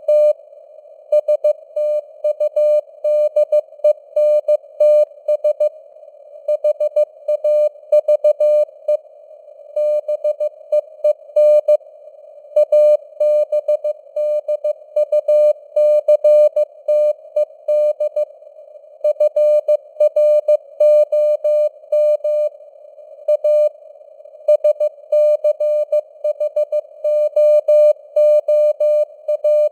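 Morse code (CW) sent at 15 words per minute: a single mid-pitched beep keyed on and off in dots and dashes, grouped into letters and words with short pauses. Between the beeps runs a faint hiss of simulated radio noise around the tone's pitch.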